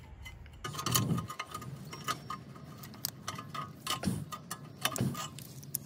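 Channel-lock pliers clicking and clinking against a rear brake caliper's spring as they grip and slip on it: irregular sharp metal ticks with a faint ring, the loudest about a second in and again about four seconds in.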